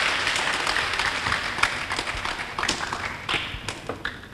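Audience applause dying away, thinning out into a few scattered claps near the end.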